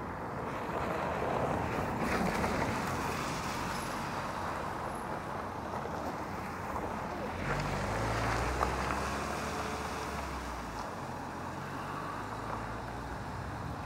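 Steady outdoor wind noise during a thunderstorm, with a low rumble of distant thunder swelling and fading from about seven and a half to eleven seconds in.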